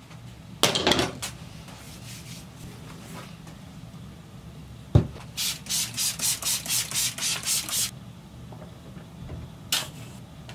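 Hands handling painting materials over a low steady hum. There is a short rustle about a second in and a sharp click about five seconds in. Then come about ten quick rhythmic rubbing strokes, roughly four a second, and a brief rustle near the end.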